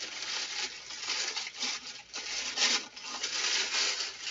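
Tissue wrapping paper and a plastic bag rustling and crinkling as hands pull them back off new sneakers in a cardboard shoebox, in uneven surges.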